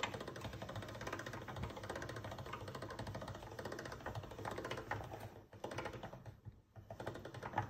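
Stainless-steel pasta machine running a sheet of dough through its spaghetti cutter rollers: a rapid, steady clicking of the gears, broken by short pauses after about five seconds.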